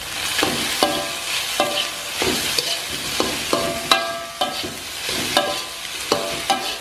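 Slotted metal spatula scraping and knocking against a thin metal wok during stir-frying, about twice a second, the wok ringing briefly after many strokes, over the steady sizzle of egg and chili frying in oil.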